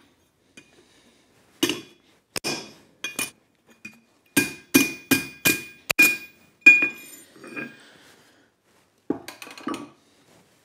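Hand-hammer blows on a steel bar lying on a blacksmith's anvil: about a dozen sharp metallic strikes at an uneven pace, each with a brief ringing tone, closest together and loudest in the middle.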